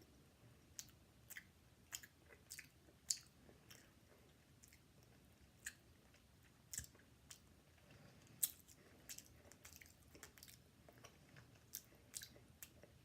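A person chewing a canned mussel in marinade: faint, irregular soft wet clicks and smacks of the mouth.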